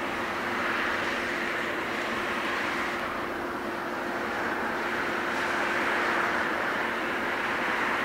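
Distant steady roar of a Boeing 737-700's CFM56-7B jet engines as the airliner slows on the runway after landing, swelling slightly near the end.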